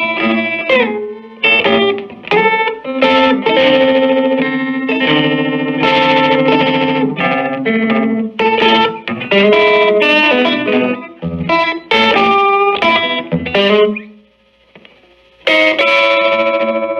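Electric guitar played through a 1965 Silvertone 1484 tube amp, mixing single notes and chords. There is a short break about fourteen seconds in, then the playing resumes.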